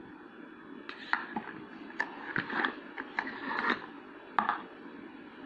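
Handling noise from unpacking a cable and its cardboard box: a string of light clicks, taps and short rustles between about one and four and a half seconds in.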